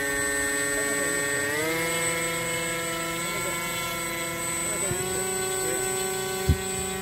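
The electric motor and propeller of a Sky Surfer RC glider running at low throttle during a ground throttle test, a steady hum with a high whine. The pitch steps up about a second and a half in and shifts again near five seconds. There is a short knock near the end.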